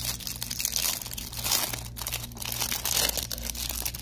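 Bubble wrap and plastic packaging crinkling and crackling as hands unwrap and handle a new replacement phone battery, with uneven louder crackles throughout.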